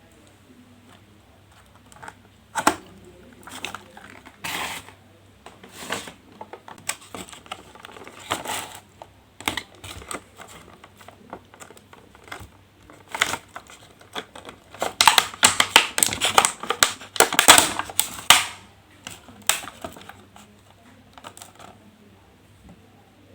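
A dog eating from its bowl, with an irregular run of clicks and clatters as the bowl knocks and is pushed about, loudest in a dense flurry about two-thirds of the way through.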